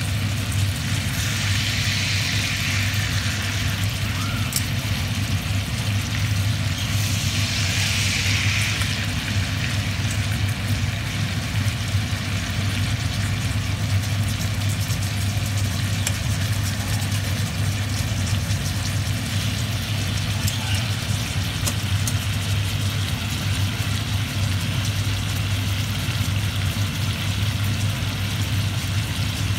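Steaks sizzling in butter in a cast-iron skillet, an even hiss that swells louder twice in the first ten seconds, under a steady low hum.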